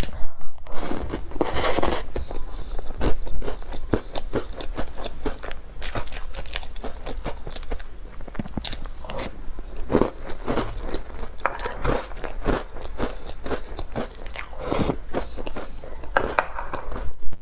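Crunchy biting and chewing of food close to the microphone, with many small irregular crackles and a few louder crunches.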